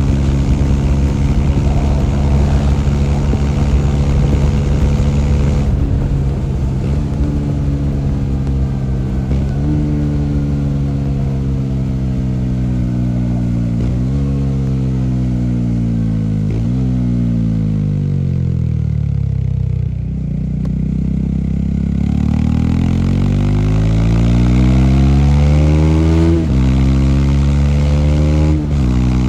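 Bajaj Dominar 400's single-cylinder engine under way: it holds steady revs, then slows with the pitch falling and jumping back up at each of three downshifts. Near the end it accelerates, the pitch rising and dropping back at two upshifts.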